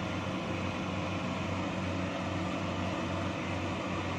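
Kubota DC-70 rice combine harvester running steadily as it cuts and threshes ripe rice, its diesel engine a constant even drone.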